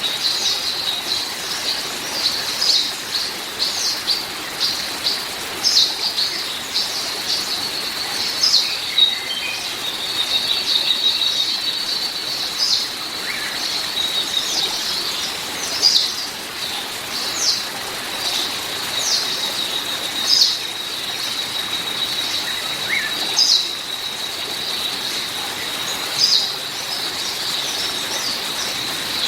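Small birds chirping in short repeated calls every second or two over a steady hiss of water, with a thin, unbroken high tone running underneath.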